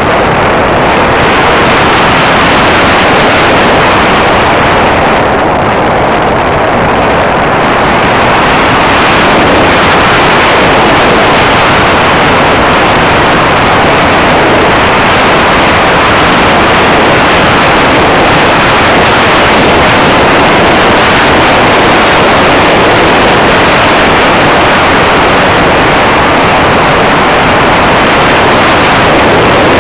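Loud, steady rush of airflow and motor noise on the microphone of a small camera riding on a radio-controlled model airplane in flight, with no distinct engine note standing out.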